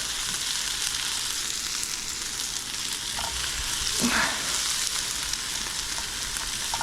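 Sofrito of onion, pepper and garlic sizzling in hot oil in a pan while it is stirred, with a brief louder sound about four seconds in.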